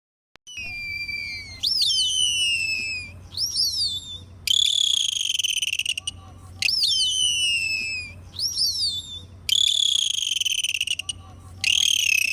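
Dolphin whistles: high, fast up-and-down gliding whistles, several overlapping, in stretches that start and stop abruptly, with the same sequence of calls coming round again about every five seconds.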